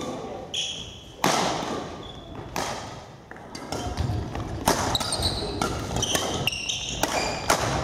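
Doubles badminton rally on a wooden hall floor: a quick, irregular run of sharp racket hits on the shuttlecock mixed with footfalls, with short, high shoe squeaks, echoing in the hall.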